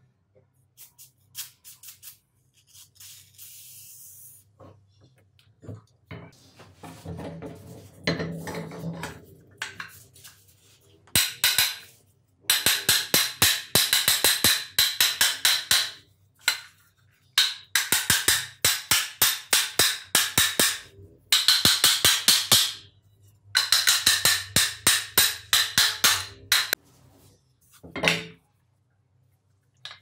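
Crank of a rusted cast-iron hand-crank coffee grinder being turned in four runs of fast, regular clicking ticks, the stiff mechanism working as it takes up freshly sprayed penetrating oil. A short hiss of aerosol spray comes a few seconds in.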